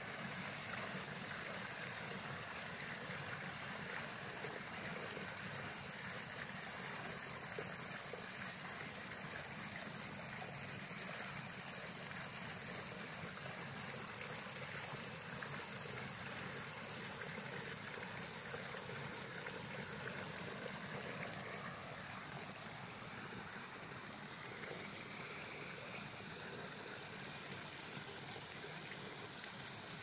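Shallow rocky stream flowing steadily over and between boulders, water splashing through small cascades in an even rush.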